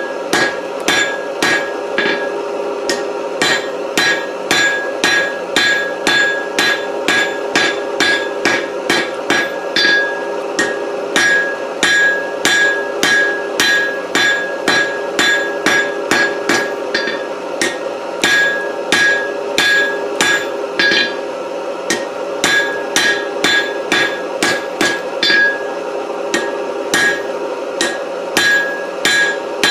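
Hand hammer striking hot 4140 tool steel on an anvil in a steady run of blows, about two a second with a few short pauses, the anvil ringing after the strikes. The blows are forging the eight-faceted taper of a round punch.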